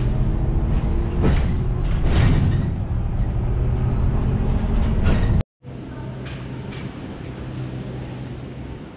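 Inside a moving city bus: steady low engine and road rumble with scattered rattles. About five and a half seconds in it cuts off abruptly and gives way to quieter street sound.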